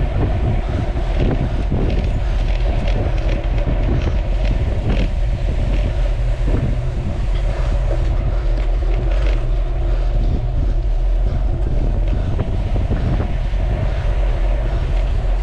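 Steady, loud wind buffeting on a moving microphone, a heavy low rumble with scattered short clicks through it.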